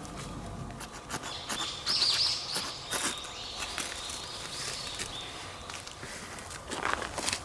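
A songbird singing a run of short whistled notes for several seconds, with scattered clicks and rustling of movement, and a louder rustle near the end.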